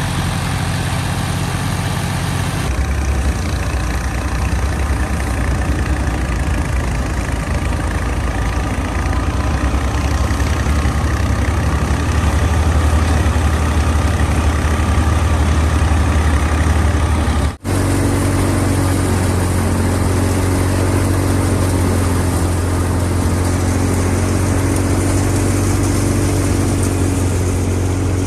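Tractor diesel engine running steadily under load, driving a wheat thresher, with a continuous low hum and the thresher's whir over it. The sound cuts out for an instant about two-thirds of the way through, and the hum comes back slightly changed.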